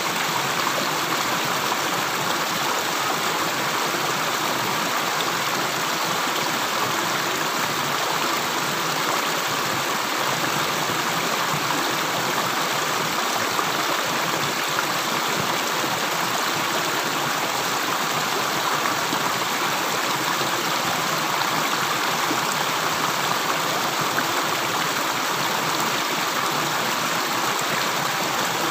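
Running water flowing steadily, an even rushing with no separate drips standing out.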